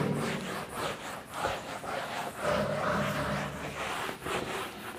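A whiteboard duster wiping back and forth across a whiteboard, a soft rubbing swish in repeated strokes.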